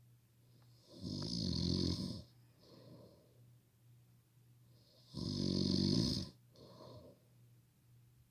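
A person snoring loudly: two long snores about four seconds apart, each followed by a shorter, quieter breath, over a steady low hum.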